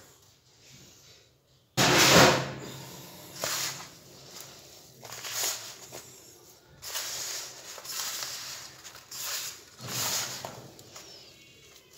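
Hands rubbing and squeezing a crumbly roasted-semolina and date mixture against a metal pan: a series of gritty rustling scrapes, the loudest starting suddenly about two seconds in.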